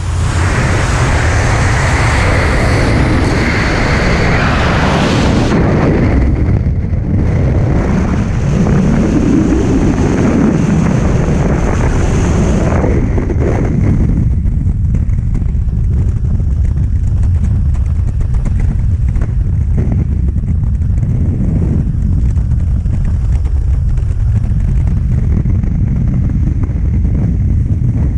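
Freefall wind buffeting a camera microphone: a loud, continuous rush. About halfway through, the hiss thins out and a low rumble remains.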